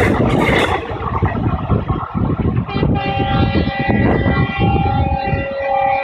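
Passenger coaches rumbling and clattering past on the rails, with wheel-on-rail noise. About three seconds in, a JMP-shed ALCO diesel locomotive's horn starts a long blast of several notes at once. The horn runs on after the wheel noise fades near the end.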